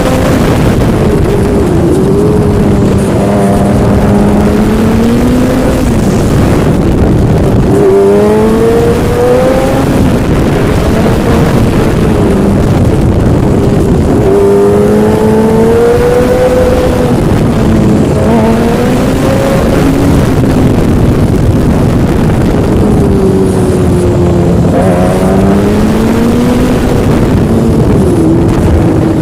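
Yamaha motorcycle engine under way, its pitch climbing as it accelerates and then dropping back, again and again as it goes through the gears, over a heavy low rumbling noise.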